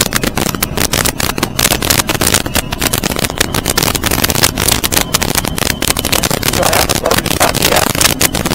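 Defiance Admiral 25 cabin boat running on plane, heard from inside the pilothouse: a loud steady rush of engine, water and wind, broken by many quick irregular knocks.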